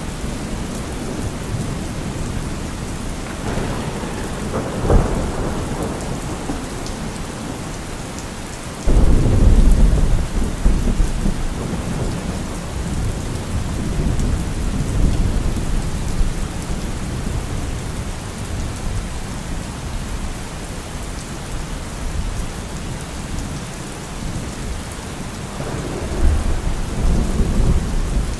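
Heavy rain falling steadily through a thunderstorm, with thunder: a sharp crack about five seconds in, then a sudden loud, low rumble a few seconds later that rolls on for several seconds, and another rumble building near the end.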